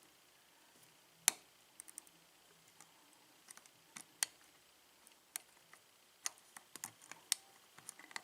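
Lock pick and tension wrench working the pins of a four-pin Master padlock during single-pin picking: scattered small metallic clicks and ticks, the loudest about a second in.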